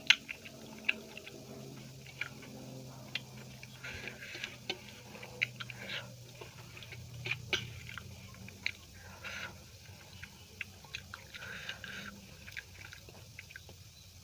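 A person chewing food close to the microphone, with wet mouth clicks and smacks at irregular intervals.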